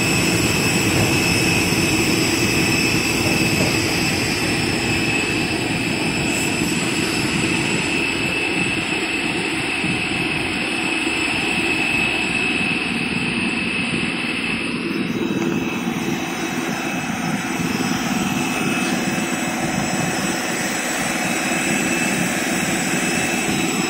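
Steady roar of jet aircraft turbines with a constant high whine over it; the whine weakens a little about fifteen seconds in.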